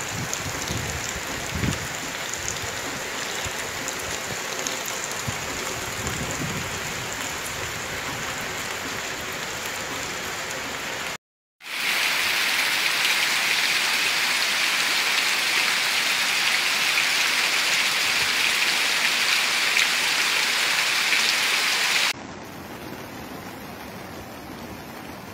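Heavy rain falling steadily, a loud even hiss broken by a short silent gap near the middle. About three seconds before the end it gives way to a quieter, steady rush of running water.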